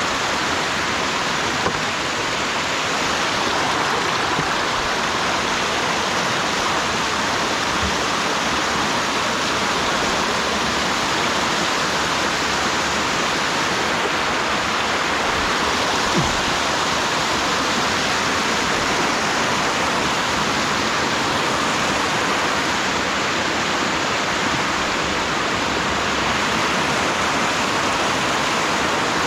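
Water rushing steadily down a rocky stream bed, a continuous even rush of cascading water.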